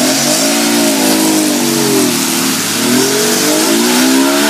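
Off-road 4x4's engine revving hard, its pitch rising and falling in waves as the spinning wheels churn through a deep mud hole, over a steady hiss of mud and water being sprayed.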